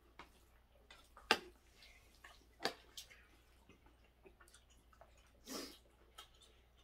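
Metal spoon clinking against a ceramic plate a few times while scooping food, the sharpest clink about a second in, with a short soft rushing noise near the end.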